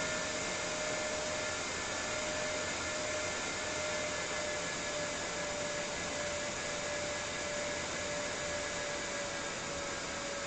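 Small 12 V, 6 W side ventilation fan for a camper van running steadily: an even rush of air with a steady motor whine.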